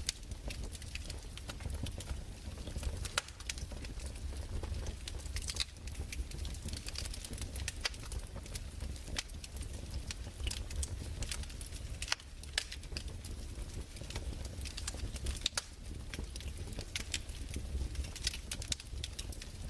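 Fireplace fire crackling, with irregular sharp pops over a steady low rumble.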